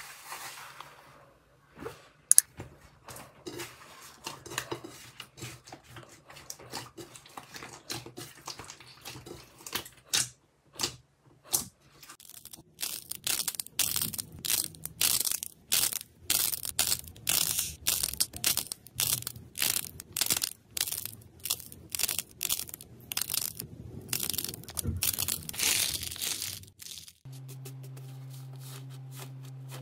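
Slime being pressed, stretched and torn by hand: sparse sharp crackles at first, then a long run of rapid crackling and popping, several snaps a second. Near the end the crackling stops and a steady low hum takes over.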